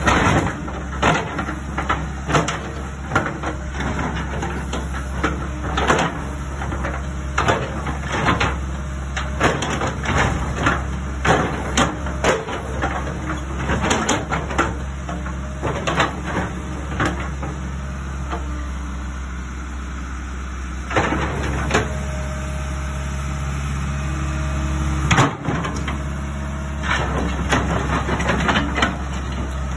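Diesel engine of a tracked hydraulic excavator idling steadily, with irregular sharp clicks and knocks over it, most of them in the first half.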